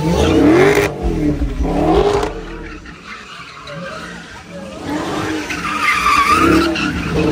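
Dodge Charger's V8 revving in surges while it spins donuts, its rear tyres squealing and skidding on the asphalt. The engine rises twice in the first two seconds, eases off, then climbs again with a wavering tyre squeal near the end.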